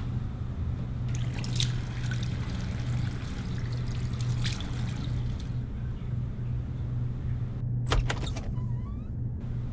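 Water running and splashing at a bathroom sink, over a steady low hum. Near the end comes a sharp click and a short squeak.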